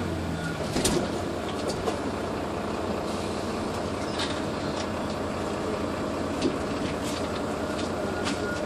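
Cabin noise inside a Neoplan N4016 city bus: the steady run of the engine and road, with a few sharp clicks and knocks, about a second in, near the middle and at the end.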